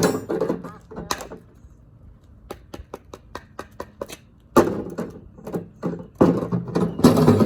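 A hockey stick knocking and banging on the ground: a run of quick sharp knocks, then louder, longer clatters about halfway through and again near the end.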